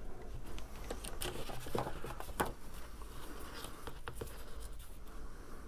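Cardstock and tape being handled and pressed into place by hand: soft paper rustling with scattered small clicks and taps.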